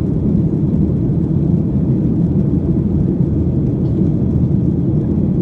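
Steady low cabin noise of a Boeing 737-900 climbing out after takeoff: its CFM56-7B jet engines and the rush of air, heard from a window seat inside the cabin.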